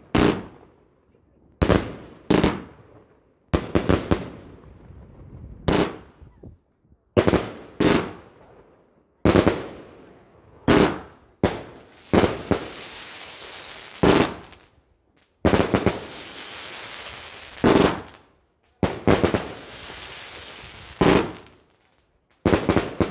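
Aerial fireworks going off in quick succession: sharp bangs about once a second, each fading away. A steady hiss runs between the bangs through the middle stretch.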